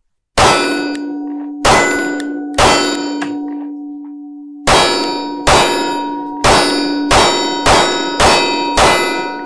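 Sig P365XL 9mm pistol fired ten times, each shot followed by the clang of a steel target whose ring hangs on between shots. Three spaced shots, a pause of about two seconds, then seven quicker ones, with no stoppage.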